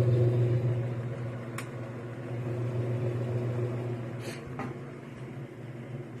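A steady low machine hum that slowly fades away, with a sharp click about a second and a half in and two soft knocks near four seconds in.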